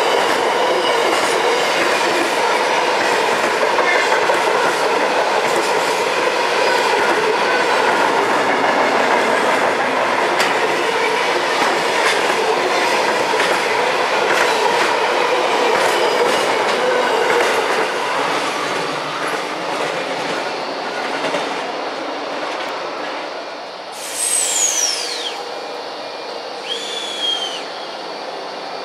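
Freight train of empty flat wagons rolling past close by: a steady rumble of wheels on rail with a thin, held wheel squeal, fading away about two-thirds of the way through. Near the end, a high falling whistle and then a shorter high call.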